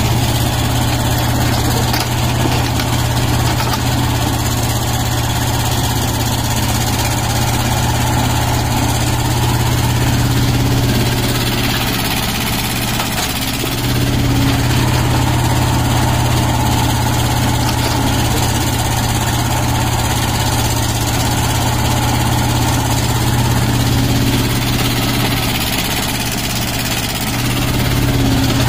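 Tata Hitachi mini excavator's diesel engine running steadily as it digs, its note sagging briefly about halfway through and again near the end.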